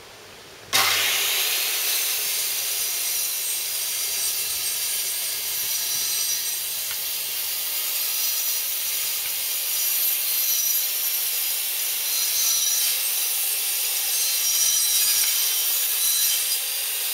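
Handheld corded circular saw starting suddenly a moment in and running steadily as it cuts across tongue-and-groove timber boards along a guide rail, trimming the gate's end to length.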